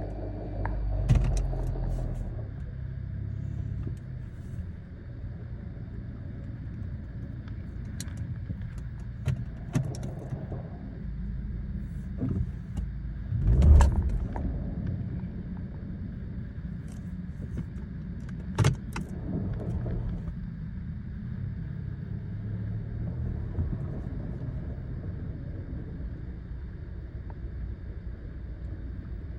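2015 Nissan Sentra, heard from the car: a steady low rumble with irregular sharp clicks and knocks, the loudest about fourteen seconds in. The clicks and knocks are the owner's unidentified noise.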